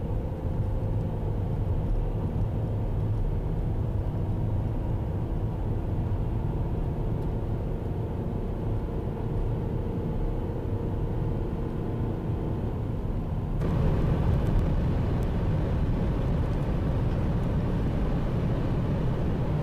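A car driving along a highway: steady low road and engine rumble. About two-thirds of the way through the sound jumps abruptly to a brighter, slightly louder road noise.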